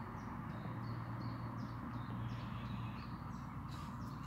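A small bird calling a short, high, falling chirp over and over, about two a second, over a steady low hum, with brief rustling near the end.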